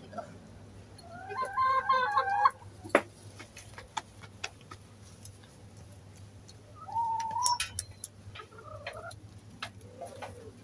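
Backyard hens clucking and calling while they feed, in a few short bouts, with scattered sharp taps; the loudest tap comes about three seconds in.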